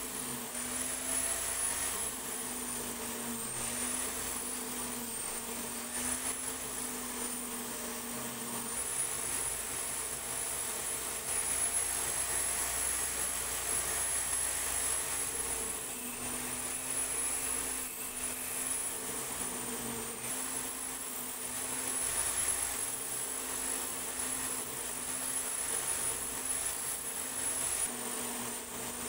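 Power tool spinning a wire wheel brush that scrubs rust off small steel toy-tricycle parts: a steady motor whine with a scratchy hiss. The pitch steps up for several seconds about a third of the way in, then settles back.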